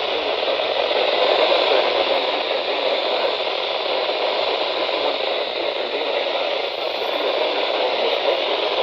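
Steady hiss of static from a weather radio receiver with no broadcast coming through.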